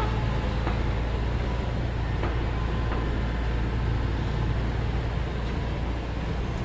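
Komatsu excavator's diesel engine running steadily with a low drone, with a few faint clicks over it.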